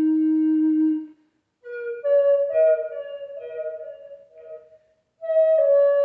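Wooden Native American style flute played solo. A long low note stops about a second in. After a short pause comes a phrase of higher notes that trails off, then a loud higher note near the end that steps down in pitch.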